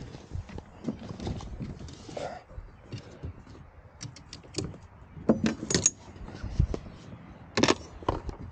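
Kayak fishing gear being handled: rustling with scattered plastic clicks and knocks, a few louder knocks about five and a half seconds in and near the end.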